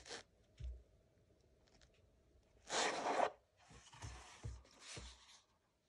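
A hardcover book being slid out of its cardboard slipcase: a loud scraping rasp about three seconds in, lasting about half a second, then softer sliding rubs. A couple of small taps come before it.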